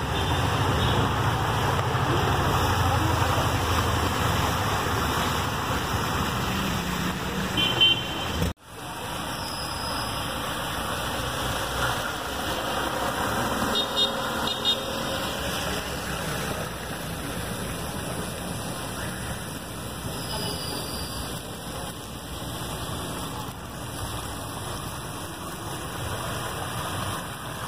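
Cars driving through a flooded street, engines running and tyres pushing through standing water, over a steady wash of noise. The sound drops out sharply about eight and a half seconds in and comes back quieter and steadier.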